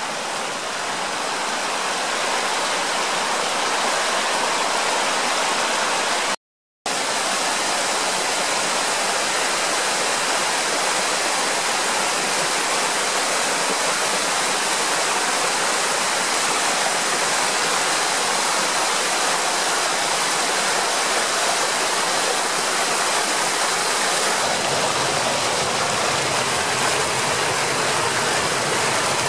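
Water of the upper Bode waterfall, a small mountain river cascade, rushing steadily. It cuts out for about half a second some six seconds in, and from about 24 seconds on it has a fuller low rumble.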